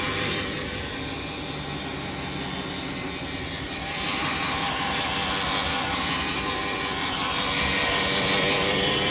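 Audi Q7 running with a noise from the drivetrain that the owner puts down to a faulty torque converter. It grows louder about four seconds in and stays up.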